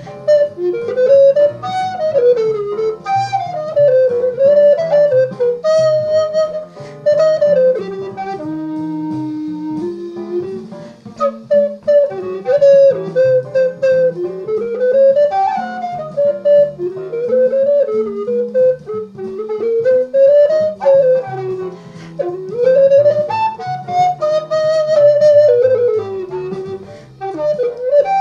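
Tenor recorder playing a fast, winding jazz melody line, with one long low note about eight seconds in, over a backing track with guitar.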